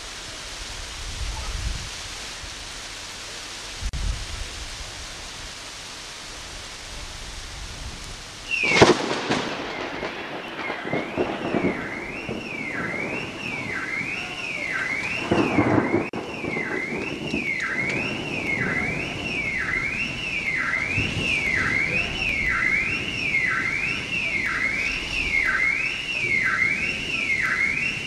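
Steady rain, then a sudden loud thunder crack about nine seconds in, with a second thunder rumble several seconds later. Right after the crack a car alarm starts wailing, its tone sweeping up and down about once a second, and keeps going.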